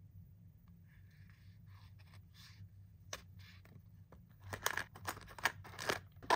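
A lip balm stick rubbed across a paper card in a few soft scratchy strokes, then a run of sharp handling clicks and rustles that grows louder near the end, over a low steady hum.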